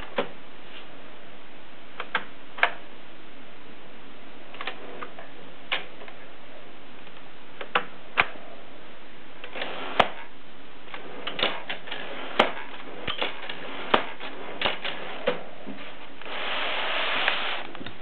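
Vintage manual typewriter being handled, its carriage and paper-handling mechanism giving irregular single clicks and clacks, with a longer rasping stretch near the end.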